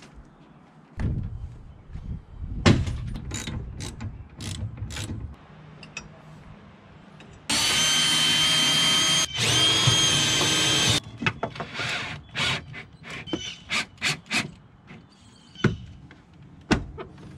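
Cordless drill running at a steady speed, drilling into a boat's fiberglass helm console for about three seconds, with a brief stop partway through. Scattered clicks and knocks from handling parts come before and after.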